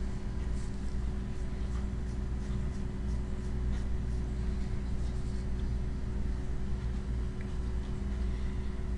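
Steady low room hum with a faint steady tone over it, and light, faint ticks through the first half or so.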